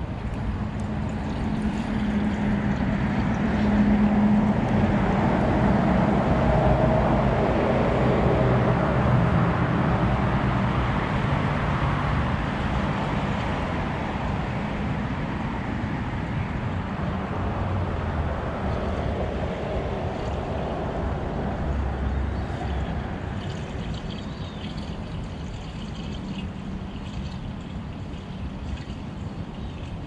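Dolphin Triton PS pool robot running in the pool: water churning over a steady low motor hum. It grows louder over the first few seconds and slowly fades toward the end.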